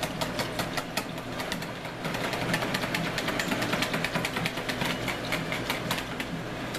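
Wire whisk beating thick homemade barbecue sauce in a plastic mixing bowl: a rapid, steady clatter of the wires ticking against the bowl, several clicks a second.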